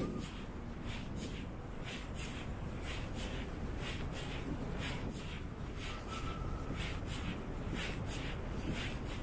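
Footsteps of someone walking on stone paving, about two steps a second, over a steady low rumble of street traffic.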